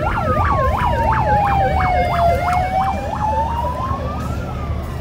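Ambulance siren sounding on a Code 1 emergency response, playing a fast yelp of about four sweeps a second together with a slow rising and falling wail. The yelp stops about halfway through, and the wail fades near the end as the ambulance moves off.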